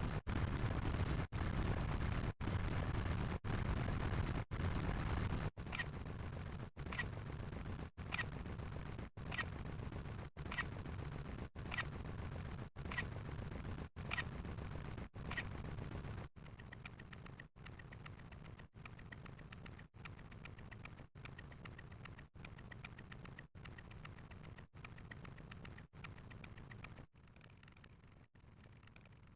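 A rapid succession of short sound-effect clips, about one a second, each cut off by a brief silent gap. First a low rumbling noise, then clips that each carry one sharp high click, then clips of fast ticking that grow fainter near the end.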